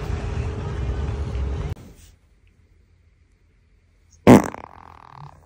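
A single loud fart about four seconds in: a sharp burst trailing into a short buzz. Before it, for the first two seconds, there is a steady low rushing of wind on the microphone, which stops abruptly.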